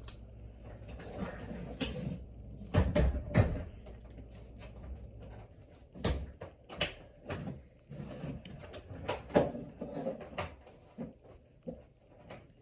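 Metal tweezers clicking and scraping irregularly against a smartphone's frame and adhesive while picking at a small stuck-on part, with a few louder knocks of handling on the bench.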